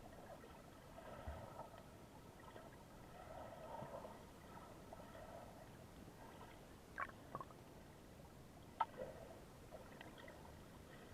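Faint, gentle lapping of small Aegean Sea waves, washing in soft swells every few seconds, with a few light clicks.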